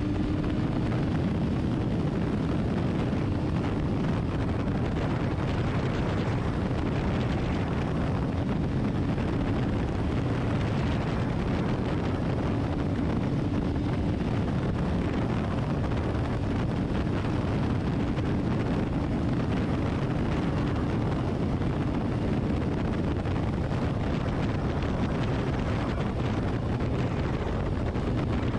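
BMW S1000RR inline-four engine running at a steady highway cruise, heard from the rider's position under heavy wind rush on the microphone.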